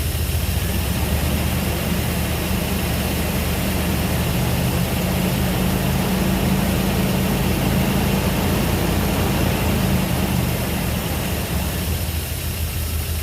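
Jeep Grand Cherokee engine idling steadily on its first start after a rebuild with new connecting rod bearings. It runs with a slight miss, which the owner thinks may be a vacuum leak.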